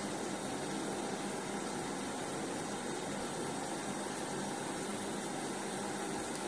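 Steady room noise: an even hiss with a faint hum and no distinct knocks or handling sounds.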